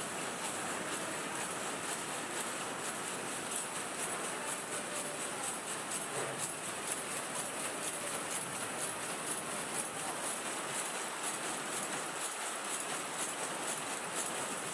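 Matchbox packing machine running, its levers and slides clattering in a fast, even rhythm of clicks over a steady mechanical hum.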